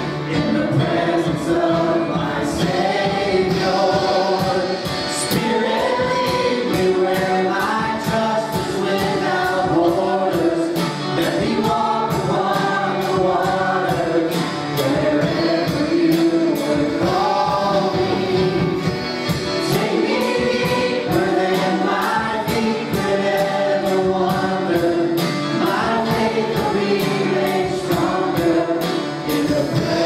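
Voices singing together, a gospel-style church song over instrumental accompaniment, with a steady high tick about twice a second keeping the beat.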